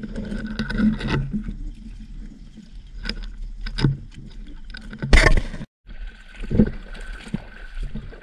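Irregular knocks and bumps with faint water sounds, as on a small boat at sea. The sound drops out completely for a moment a little past halfway.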